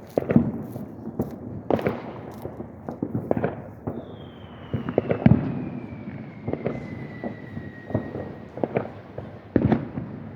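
Fireworks going off in a steady run of booms and sharp bangs, with louder clusters at the start, about halfway and near the end. A long whistle falls slowly in pitch for about four seconds, starting just before the middle.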